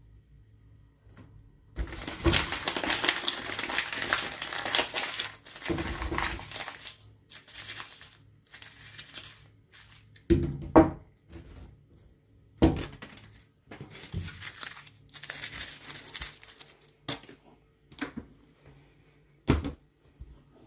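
A sheet of paper being crumpled into a ball by hand: a long spell of dense crinkling, then shorter crackles as the ball is squeezed, with a few sharp knocks and a single thunk near the end.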